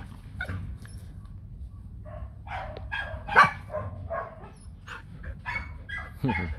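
Bắc Hà dogs squabbling with each other: a string of short barks and yips, loudest about three and a half seconds in, over a steady low rumble.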